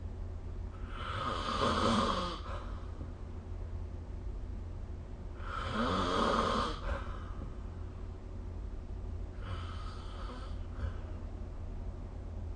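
A sleeping person snoring: three snores about four seconds apart, each lasting a second or so, the last one fainter.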